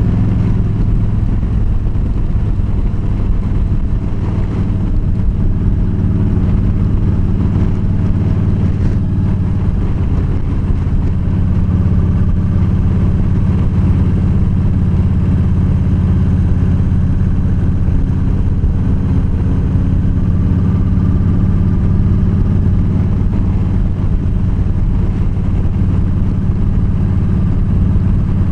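Yamaha V-Star 1300's V-twin engine running steadily at cruising speed on the open road, a deep even hum with little change in engine speed.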